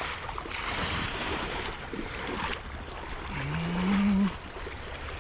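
Splashing water and clothing rustling close to the microphone as a large steelhead is landed by hand, with one short rising grunt or hum from the angler about three and a half seconds in, the loudest sound.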